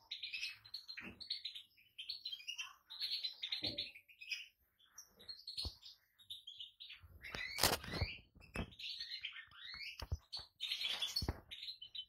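European goldfinch twittering in quick bursts of short, high chirps and trills. Several sharp knocks are mixed in, the loudest cluster a little past halfway.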